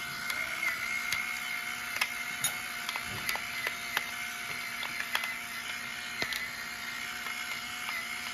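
Battery-powered electric pepper grinder running continuously over a bowl, grinding black pepper: a steady small-motor whine with scattered sharp clicks.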